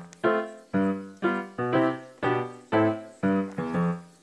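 Background music with short, evenly paced notes, about two a second, each fading quickly.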